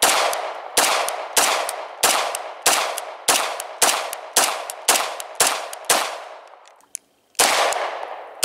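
A semi-automatic pistol fired in a rapid string, about a dozen shots at roughly one every 0.6 s, each report trailing off in echo. There is a short break about six seconds in before the shooting resumes.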